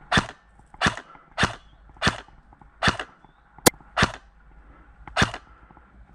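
Airsoft electric rifle (AEG) firing about eight single shots on semi-auto, spaced irregularly about half a second to a second apart.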